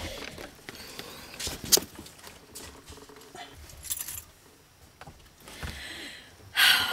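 Rustling and scattered light clicks from the camera being handled, with a louder rustle near the end as the camera shifts.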